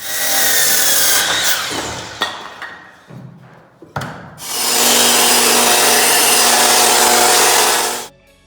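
Power saw cutting pine boards. A first cut fades away as the saw winds down over about three seconds, then a second, louder, steady cut starts about halfway through and stops sharply near the end.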